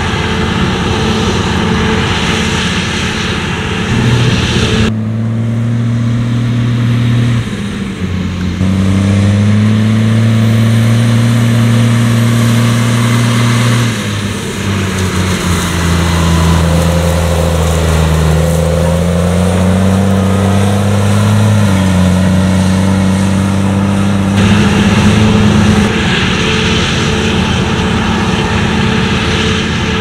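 A Claas Lexion 600 TT combine harvester runs under load cutting oilseed rape, a dense, steady machine noise. About five seconds in it gives way to a JCB Fastrac tractor hauling a trailer across the stubble, its engine note rising and falling in steps. Near the end the combine's steady noise comes back.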